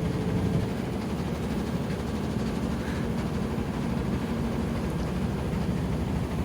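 Washing machine on a high-speed spin, its drum running steadily with a continuous low rumble. The machine is vibrating hard because of an unbalanced load of towels.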